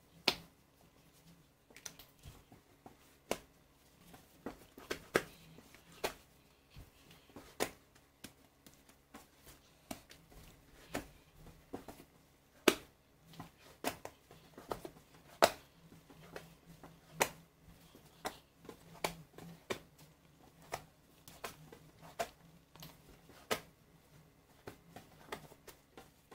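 Hands stretching and pressing wet ciabatta dough on a floured countertop: sharp, sticky clicks and taps as fingers press the dough and meet the counter, coming irregularly about once a second.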